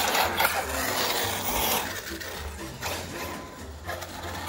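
RC car (Arrma Kraton) driving on concrete: an uneven scraping, rasping noise of tyres and drivetrain, dropping off about three seconds in.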